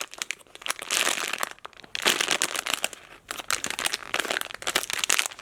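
Plastic packaging crinkling in irregular bursts as a squishy toy is handled.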